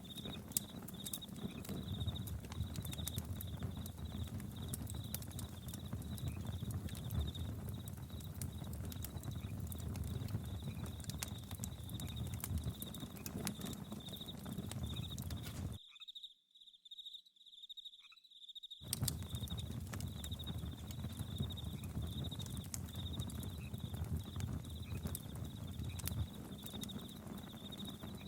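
Campfire crackling, with frequent sharp pops and snaps over a low rush, under crickets chirping in a steady, pulsing high trill. About 16 seconds in, the sound drops out almost entirely for about three seconds, then comes back unchanged.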